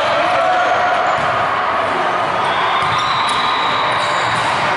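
Volleyball rally in a large gym hall: a steady, loud, echoing din of play, with a few sharp hits, one about three seconds in.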